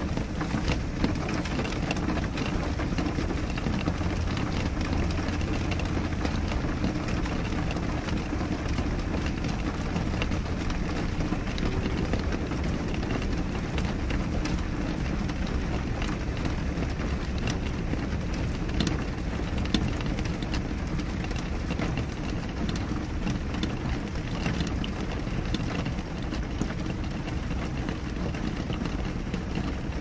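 Steady rain on a window pane, with many separate drops ticking against the glass over a constant low rumble.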